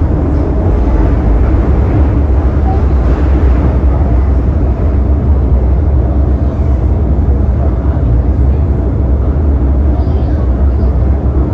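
Inside a Metro-Cammell M-Train car running through a tunnel: a loud, steady, deep rumble of wheels on rail and running gear.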